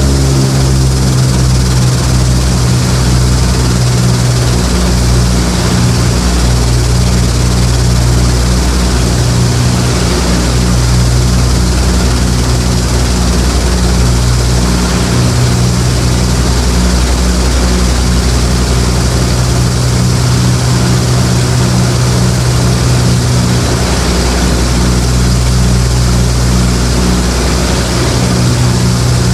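A B-25 Mitchell's two Wright R-2600 Cyclone radial engines running with propellers turning, a loud steady drone with a low, uneven throb, heard from inside the cockpit.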